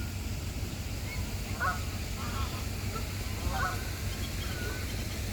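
Geese calling: several short, separate honks, the first about a second in and the others spread through the rest, over a steady low background rumble.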